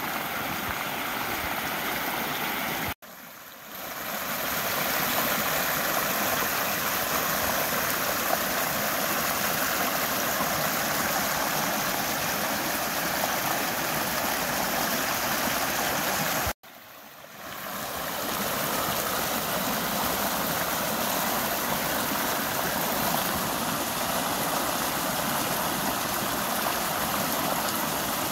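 A small mountain creek rushing steadily as it spills over a fallen log into a shallow, rocky pool. The sound cuts out suddenly twice, about three seconds in and again past halfway, and swells back within a second or so each time.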